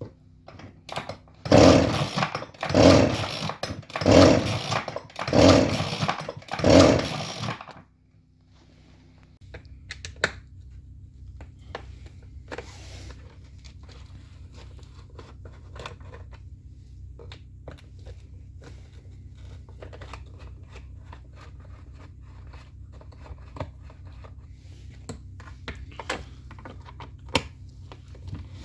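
Partner 350 two-stroke chainsaw engine revved five times in quick bursts, then cutting off suddenly about eight seconds in. After that there is a low steady hum with scattered light clicks.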